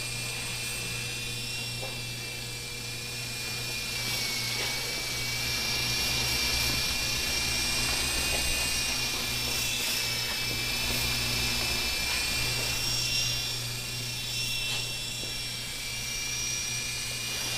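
Blade mCX micro coaxial RC helicopter flying, its small electric motors and rotors giving a steady high whine that dips and rises slightly in pitch with the throttle.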